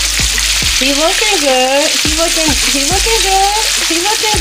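Hot oil bubbling and sizzling steadily around a breaded Cornish hen that is deep-frying. A melody with sliding notes plays over the frying.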